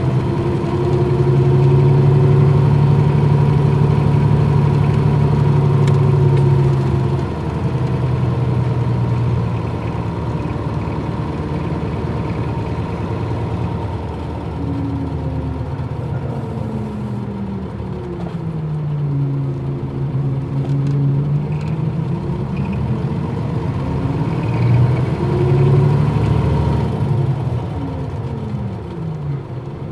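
Nissan Diesel KL-UA452MAN city bus's diesel engine running while the bus drives, heard from on board. Its pitch holds steady for the first several seconds, then falls and rises a few times as the bus slows and pulls away again.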